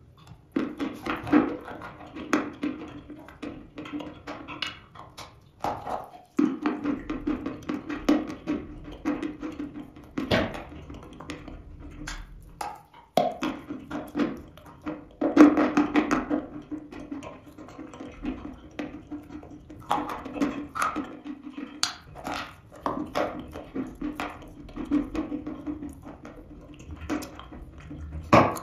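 Close-miked crunching as a chalk bowl filled with cream is bitten and chewed: many sharp cracks of breaking chalk come in runs, broken by two short pauses, with a low steady hum underneath.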